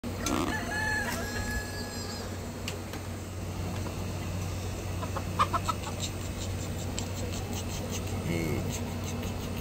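Chickens clucking and calling, with a longer drawn-out call in the first couple of seconds and a loud burst of short clucks about halfway through.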